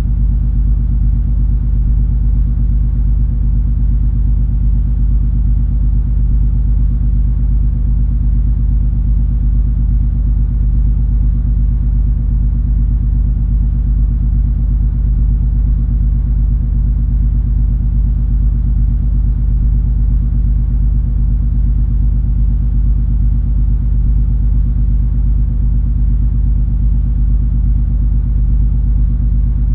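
Steady low rumble of the cruise ferry MS Color Fantasy's engines and hull vibration heard aboard while the ship is under way, with a few steady low hums in it and no change.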